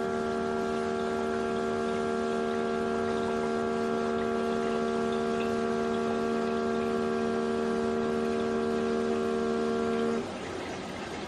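Keurig K-Mini single-serve coffee maker humming steadily as its pump pushes water through during a water-only cleansing brew, then cutting off suddenly about ten seconds in as the reservoir empties.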